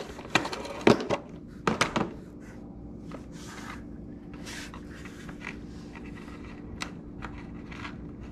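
Rummaging through plastic tackle boxes and bait packs. Several sharp plastic clicks and knocks come in the first two seconds, then soft rustling and scraping, with one more click near the end.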